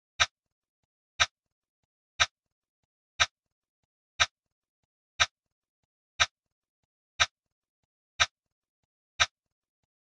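Count-up timer ticking: one short, sharp click each second, ten in all, with silence between.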